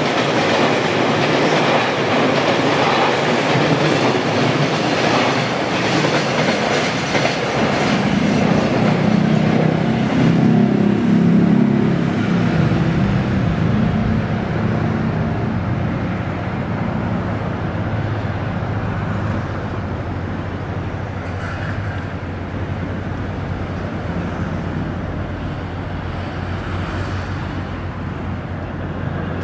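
Loaded container freight wagons rolling past on the rails, loud for about twelve seconds. The sound then dies down to a steady low rumble as the end of the train draws away.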